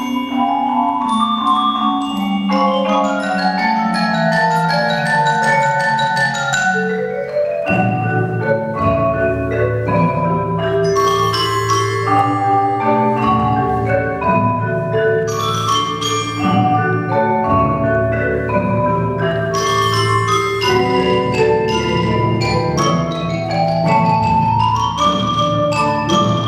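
Adams marimba played four-hands by two players: quick runs of ringing mallet notes, with a lower bass line joining about eight seconds in.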